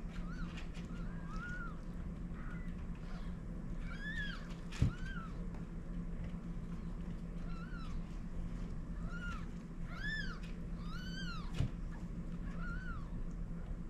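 Newborn kittens mewing: about a dozen short, high-pitched mews, each rising and falling, coming every second or so over a steady low hum. There are two sharp clicks, about five seconds in and near the end.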